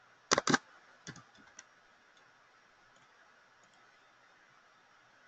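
Computer keyboard keystrokes: a quick loud cluster of clacks just after the start and a few softer clicks about a second in, then only faint room hiss.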